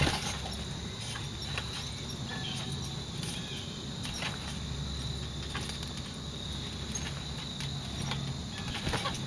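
Crickets chirping steadily in the background, one high continuous trill, with scattered light clicks and creaks from a trampoline's springs and mat as a child bounces and tumbles on it, the sharpest click right at the start.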